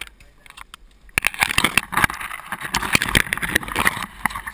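Leafy branches brushing, scraping and snapping against a canoe as it is worked through bankside brush. A dense crackle of rustles and sharp clicks starts about a second in and dies away near the end.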